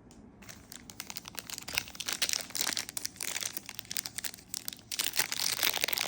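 Foil trading-card pack wrapper crinkling as it is handled and torn open, a dense run of crackles that gets louder about two seconds in.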